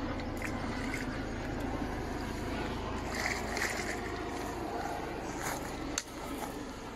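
Water sloshing and swirling in a landing net as a large common carp moves in the shallow margin, over a low wind rumble on the microphone; a sharp click about six seconds in.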